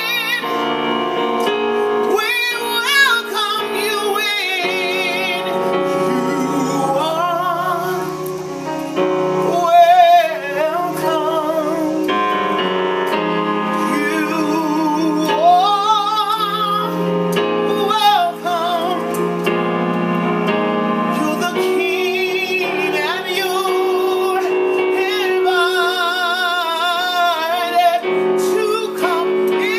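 A woman singing a gospel song with strong vibrato over sustained keyboard accompaniment.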